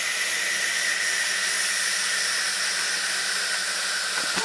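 Homemade saltpeter-and-sugar rocket motor burning in a static test firing: a steady, loud rushing hiss with a faint whistle that slowly falls in pitch.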